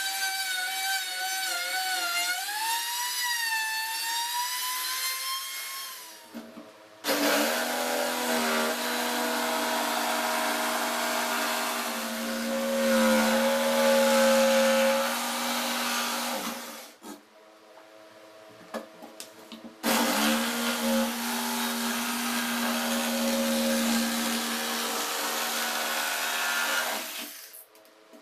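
A trim router cutting into plywood, its high whine wavering in pitch as the bit takes load; about six seconds in it stops. An electric jigsaw then saws through the plywood top in two runs of about ten and seven seconds, with a pause of about three seconds between them.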